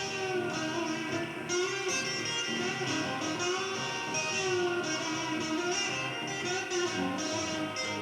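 Blues music with a guitar playing prominently.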